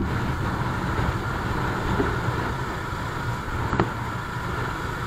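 Bajaj Dominar 400's single-cylinder engine running at a steady cruising speed, with wind rushing over the microphone.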